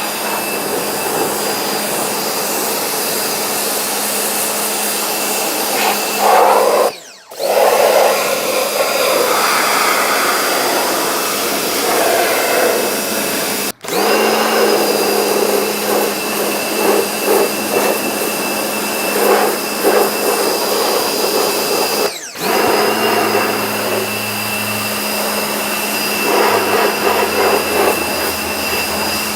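Vacuum cleaner motor running steadily, the suction sound shifting in places as the nozzle works over surfaces; it breaks off briefly three times.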